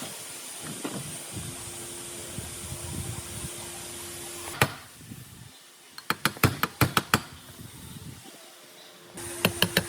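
Restoration work on machine parts: a steady hiss and hum that stops with a sharp click, then a quick run of sharp clicks or taps, and more clicks as the hum returns near the end.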